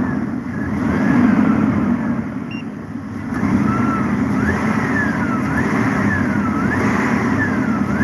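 Truck engine being revved up and down under the hood, with a high alternator whine that rises and falls with the revs. The mechanic calls it the whistle of the alternator charging and suspects its diodes have failed.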